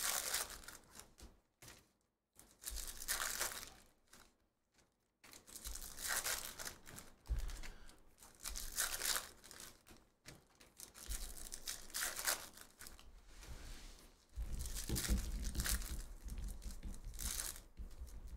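Foil trading-card pack wrappers being torn open and crinkled by hand, in bursts with short quiet gaps between. A low rumble joins in near the end.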